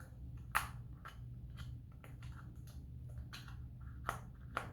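Scattered light clicks and taps from handling a small plastic slime container and the slime, over a low steady hum. The sharpest click comes about half a second in, and two more come near the end.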